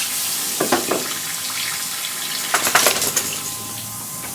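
Water running from a tap as a steady hiss that starts suddenly, with a few brief knocks and clatters over it.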